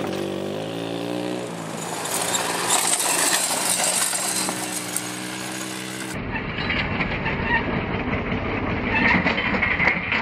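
Go-kart engine running, rising in pitch over the first second or so and then holding steady. About six seconds in the sound cuts abruptly to a rougher, noisier recording of the kart as it runs up the dirt jump.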